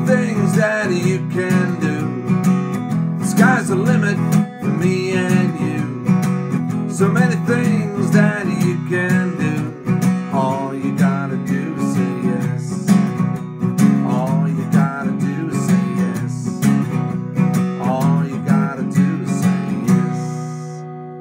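A man singing to his own strummed cutaway acoustic guitar. Near the end the strumming stops and the last chord rings out and fades.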